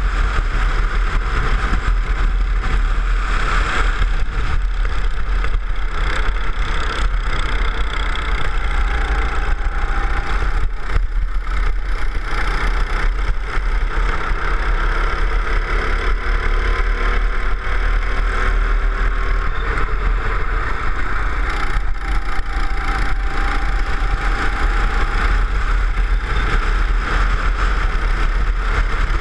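Go-kart engine running under load as the kart laps the track, its pitch slowly rising and falling, over a heavy steady rumble heard from on board the kart.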